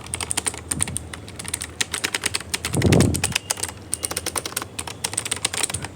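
Fast typing on a Cosmic Byte Vanth mechanical keyboard: a quick, uneven run of key clicks, with one duller thump about three seconds in.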